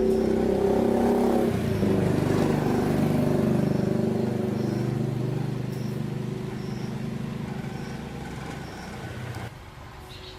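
Small two-stroke chainsaw engine running: held at higher revs for the first second or so, then dropping to a lower, steady speed that slowly gets quieter and cuts off near the end.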